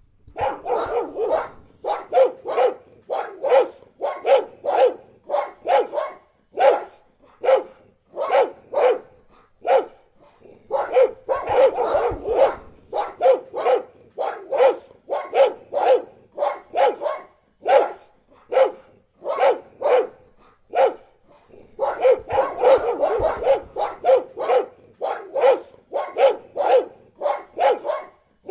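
Dogs barking repeatedly: a steady run of short, sharp barks about two a second, thickening into overlapping barking in two stretches, near the middle and again later.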